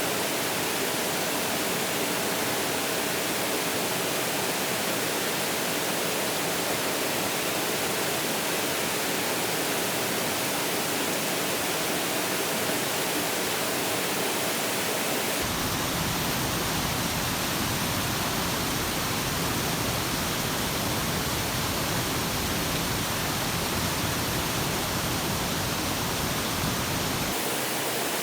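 Steady rushing water noise, even and without breaks. About halfway through it abruptly takes on a deeper rumble, which lasts until just before the end.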